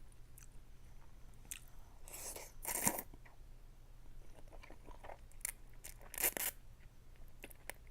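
A person eating ramen noodles close to the microphone: short slurps and chewing, the loudest about two to three seconds in and again around six seconds in.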